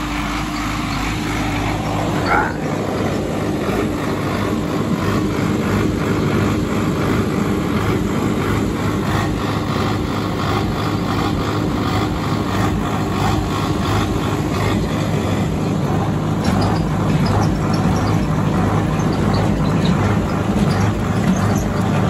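Preet 6049 tractor's diesel engine running steadily under load while it drives a Massey Ferguson 1840 small square baler picking up straw. The engine note shifts slightly about two-thirds of the way through.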